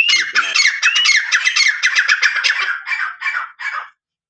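Grey francolin (teetar) calling: a loud, fast run of harsh repeated notes, opening with a couple of whistled gliding notes, that stops about four seconds in. It is a breeding-season territorial call from a male ready to fight a rival.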